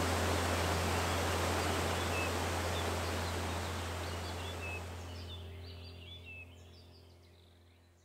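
Rushing waterfall and a low, steady held tone fading out together to near silence, with a few small high bird chirps showing through as they fade.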